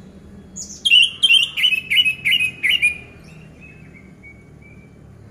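Orange-headed thrush singing: a short high note, then a quick run of about seven repeated notes, each sliding down in pitch, trailing off into a faint thin whistle.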